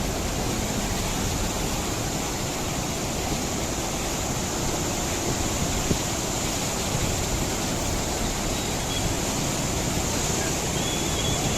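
Steady rushing noise of fast-flowing floodwater, an even wash of sound with no breaks.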